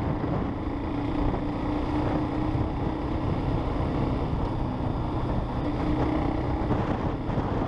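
Braaap ST250's 250cc single-cylinder engine running at a steady cruise while the motorcycle is ridden, its drone holding a fairly even pitch.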